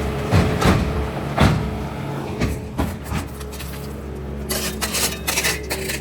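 Engine of heavy demolition equipment running steadily while old driveway concrete is broken out. Several heavy knocks come in the first second and a half, then a stretch of clattering and scraping rubble near the end.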